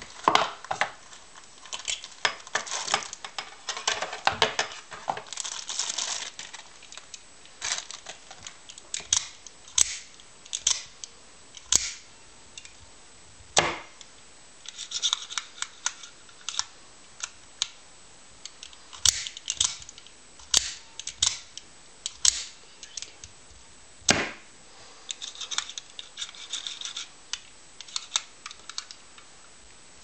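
Handling of a pouch and an out-the-front automatic knife: rustling and scraping, broken by a series of sharp clicks and snaps as the spring-driven blade is fired out and pulled back.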